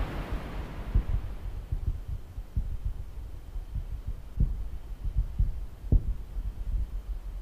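Distant Saturn V rocket as it climbs away: the roar of its five F-1 first-stage engines dies down in the first half-second, leaving a low rumble full of irregular thumps and crackles.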